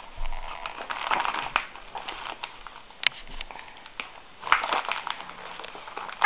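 Thin catalogue pages crinkling and rustling as a baby's hands grab and crumple them, in irregular bursts.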